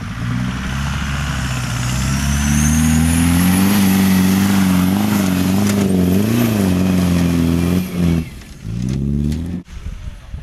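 Off-road 4x4's engine revving hard under load, its pitch climbing and wavering while held high, then easing off about eight seconds in. It picks up again in a short burst of revs and cuts off abruptly near the end, followed by a few sharp clicks.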